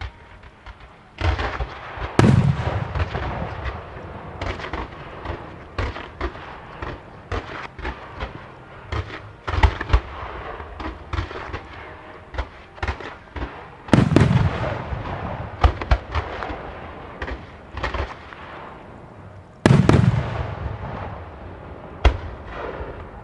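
Aerial fireworks display: a rapid, irregular series of shell bursts and crackling. Three big booms about 2 s, 14 s and 20 s in rumble on briefly.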